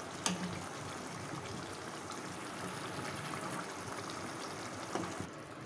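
Curry gravy simmering in a pan, bubbling steadily while a spoon ladles gravy over the koftas; one sharp click just after the start.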